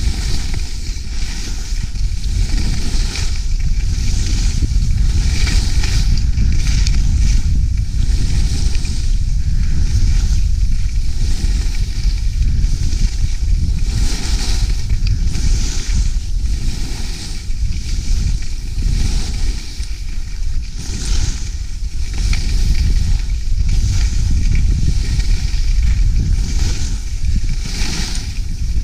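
Skis hissing and scraping over packed snow, swelling and fading every second or two through the turns, over a heavy rumble of wind on the action camera's microphone.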